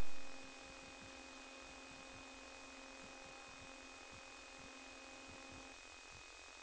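Steady electrical hiss with a faint hum and a thin high whine, after a loud burst at the very start that dies away within half a second.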